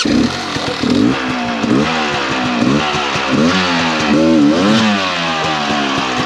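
Dirt bike engine revving up and down in repeated bursts, its pitch rising and falling about once a second while the bike is worked up a steep rocky climb.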